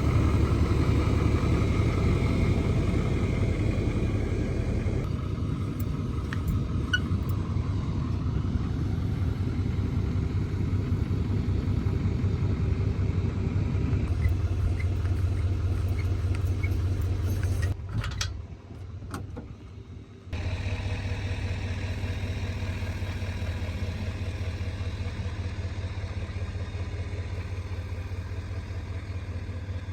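Mini excavator engine running steadily while digging a drain trench, with a short drop-out about two-thirds of the way through before it carries on.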